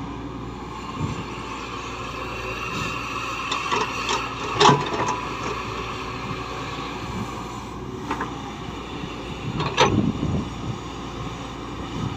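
Heavy earthmoving machinery running steadily, with two sharp clunks about five and ten seconds in and a lighter knock near eight seconds.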